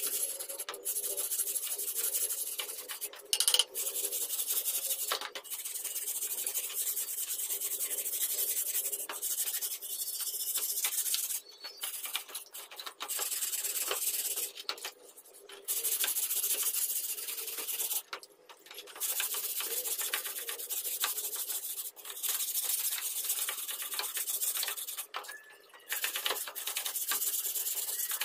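A flat wooden block scrubbed hard back and forth over the rusty steel blade of a meat cleaver, wet in a tub of water, scraping the rust off. The scratchy rubbing comes in spells of a few seconds with short pauses between them.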